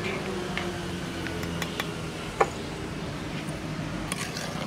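A metal ladle clinking and scraping against a clay pot while jaggery syrup is stirred, with one sharper knock about two and a half seconds in. A steady low hum runs underneath.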